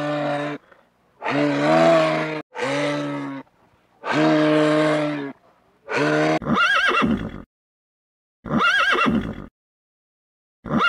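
Several long, low, drawn-out calls from a large animal, then from about six seconds in horses neighing: three whinnies that rise and fall in pitch, a second or so apart.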